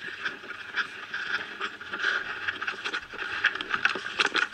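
Walking through grass with the gear close to the microphone: steps, rustling and handling noise, with irregular small clicks and knocks, a few louder ones near the end.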